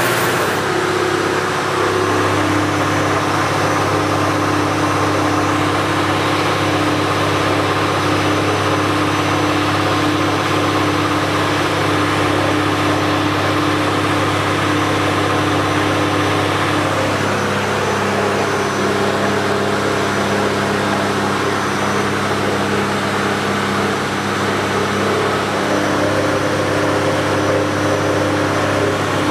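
Mercedes-Benz OM603 inline-six turbodiesel with a Holset turbo, running steadily in a boat under way. Its note steps down in pitch a little past halfway as the revs come down.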